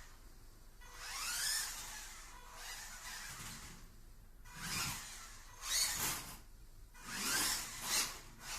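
Electric motor of a 1/18-scale 4x4 RC car whining up and down in about six short bursts of throttle, the pitch rising and falling with each burst.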